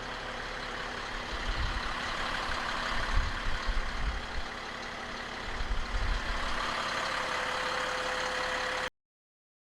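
Caterpillar C7 six-cylinder turbo diesel of a 6x6 military cargo truck running, with irregular low rumbling swells for a few seconds, then steadier. The sound cuts off abruptly near the end.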